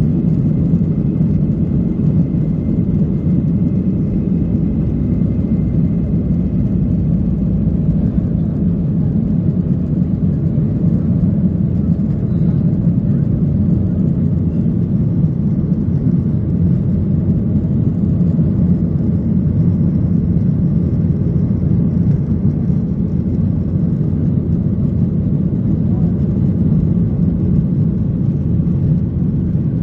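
Cabin noise of a Boeing 737-800 taking off: the CFM56-7B turbofans at takeoff power, a loud, steady low roar, with the heavy low rumble easing slightly about eight seconds in as the jet leaves the runway and climbs.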